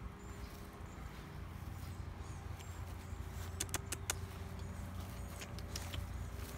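A steady low rumble with a faint steady hum, and a quick cluster of sharp clicks a little past halfway.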